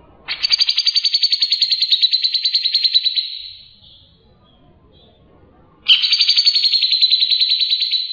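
Songbird giving two long, high, rapid trills, each of about ten pulses a second: the first lasts about three seconds, and the second starts about six seconds in. These are 'tembakan' (rapid-fire) phrases of the kind used in masteran tutor recordings for training cage birds.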